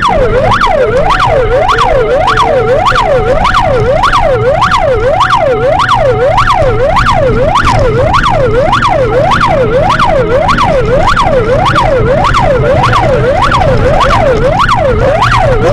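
Police car siren in a fast yelp, rising and falling about twice a second, loud and close, over the car's engine and road rumble; a steady tone sounds alongside it for several seconds in the first half.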